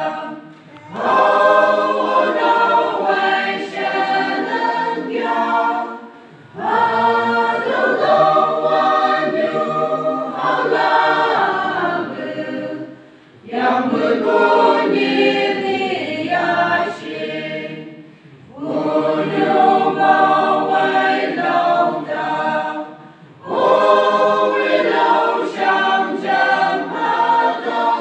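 Church choir singing a hymn together in several voices, in phrases of about five seconds with short breaks between them.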